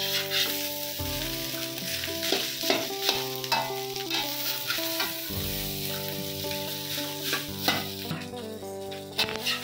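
Metal spatula scraping and knocking against a steel wok as cooked rice is turned over in hot oil, with a sizzle of frying underneath.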